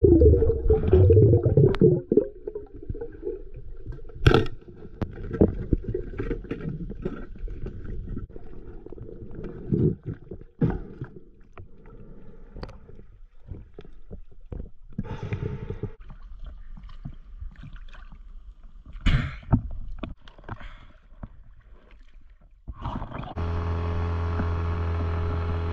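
Underwater sound while diving: water movement with a loud rumble at first, then scattered irregular clicks and knocks. Near the end it switches to a small boat's engine running with a steady hum.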